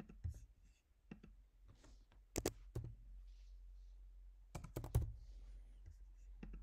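Typing on a computer keyboard: sharp keystroke clicks in two quick clusters, about two and a half and five seconds in, with a few single clicks between, over a low steady hum.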